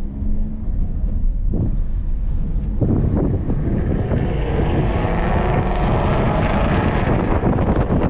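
Car driven hard on track: engine running at speed with wind buffeting the microphone, both growing much louder about three seconds in as it accelerates.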